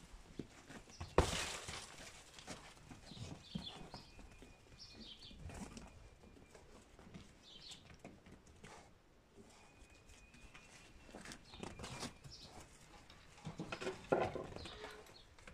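Cameroon sheep moving about a pen: scattered hoof steps and knocks, with a sharp loud knock about a second in and another thump near the end. Small birds chirp faintly.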